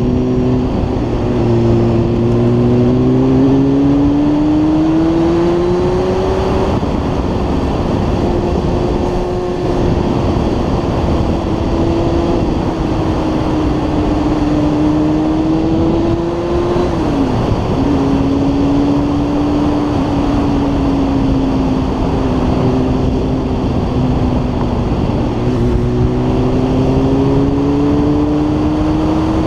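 Motorcycle engine running under way, its pitch rising and falling with the throttle through the curves, over steady wind and road noise. The engine note dips sharply and briefly about seventeen seconds in.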